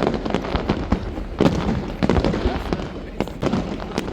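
Fireworks display: many sharp bangs and crackles from bursting shells follow one another in quick succession over a steady low rumble. Heavier booms come about a second and a half in and again near the end.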